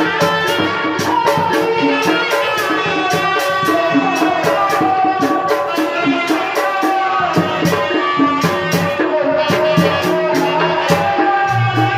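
Tanji band playing live for a kuda renggong show: a sustained melody over drums, with sharp high percussion strokes keeping a fast, even beat.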